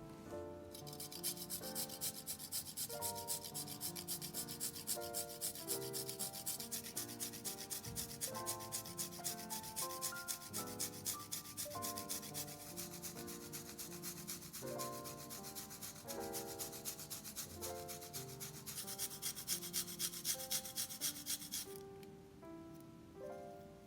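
Rapid rhythmic scraping strokes, several a second, from food being worked with a kitchen utensil; they start about a second in and stop abruptly near the end. Soft piano music plays underneath.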